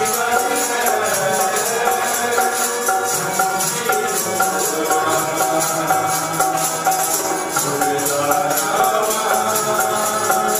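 Devotional music: a harmonium playing sustained chords over a steady jingling percussion rhythm.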